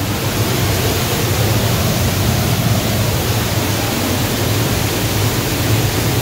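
Steady rush of falling water from a gorge waterfall, an even wash of noise with no breaks.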